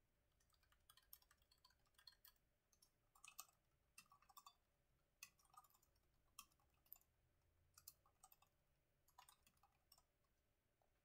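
Faint typing on a low-profile chiclet computer keyboard: soft key clicks in irregular bursts with short pauses between them.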